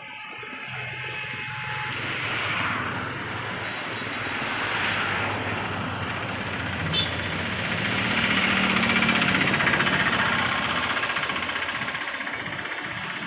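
Bull HD76 backhoe loader's Kirloskar 4R1190 diesel engine running, getting louder over the first several seconds and easing off near the end, with a single sharp click about seven seconds in.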